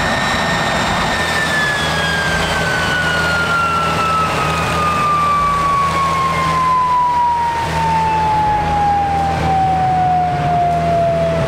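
MiG-15 turbojet engine winding down: its whine holds steady for a moment, then falls smoothly and continuously in pitch, the sign of the engine being shut down and the turbine spooling down. A steady low hum runs underneath.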